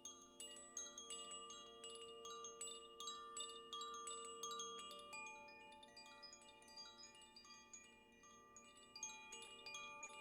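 Faint metal chimes ringing, with many high bell-like notes struck in a quick, irregular shimmer over long, steady, lower ringing tones.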